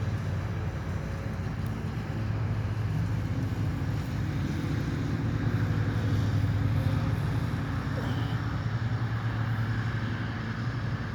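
Lawn mower engine running steadily, a low drone that swells and eases slightly.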